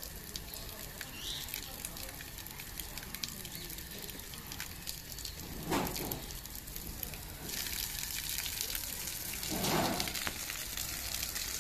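Water hissing and spraying from a pipe tap, a steady splashing hiss that grows louder and brighter about two-thirds of the way in. Two brief low rushes stand out, about six and ten seconds in.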